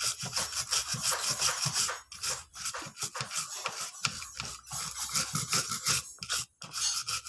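Small brush wet with thinner scrubbing burnt residue off an amplifier circuit board: a fast run of scratchy back-and-forth strokes, broken by brief pauses a few times.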